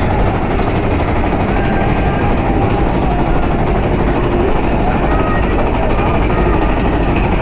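Roller coaster train running along its track: a steady, loud rumble of the ride in motion, with faint riders' voices over it.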